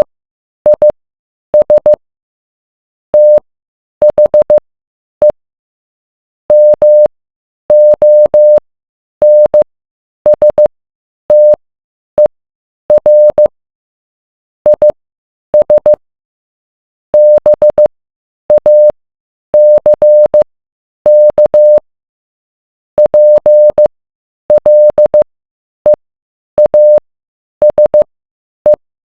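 Morse code: a single steady beep at one pitch, keyed on and off in short dots and longer dashes with silent gaps between letters and words. Each beep starts and stops with a faint click.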